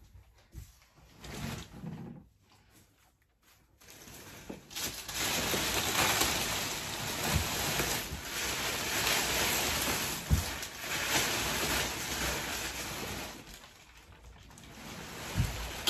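Plastic wrapping being pulled off a new mattress: a loud, crackling rustle that starts about four seconds in and fades near the end, with a few soft thuds.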